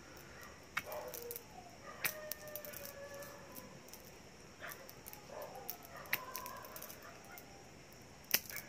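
Two quartz crystal (sphatik) mala beads struck and rubbed together, giving a sharp click every second or two: the spark test for genuine crystal. Faint whining tones sound in the background.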